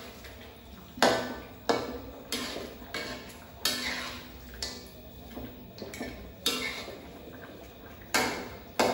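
Metal ladle knocking and scraping against a metal wok while stirring cooked meat: about a dozen sharp clanks at irregular intervals, each ringing briefly.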